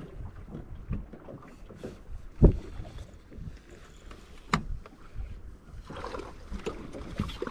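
Wind rumbling on the microphone over a bass boat's deck, with scattered thumps as an angler's feet shift on the deck while he fights a fish. The loudest thump comes about two and a half seconds in, and a second one about two seconds later.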